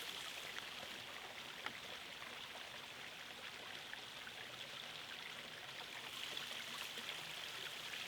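Faint steady hiss of background noise, with a few light clicks.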